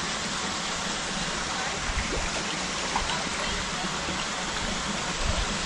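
Running water rushing steadily, an even continuous noise.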